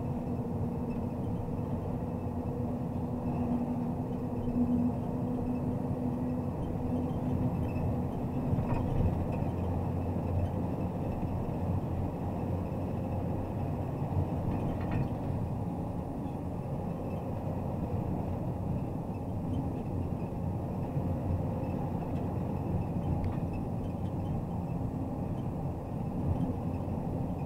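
MAZ Zubr truck crane on the move: its diesel engine and the road noise make a steady rumble, with a low engine hum that is strongest for the first seven seconds or so and then fades.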